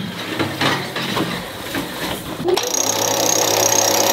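Scattered clicks and knocks, then about two and a half seconds in a small motor starts and runs steadily, a hum with a fixed high whine.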